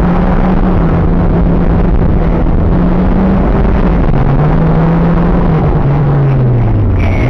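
Nissan Pulsar's engine heard from inside the car under hard driving, over loud road and wind noise. The revs hold steady at first, then drop about halfway through as the car brakes from well over 100 km/h for a bend. They pick up briefly, then fall again near the end.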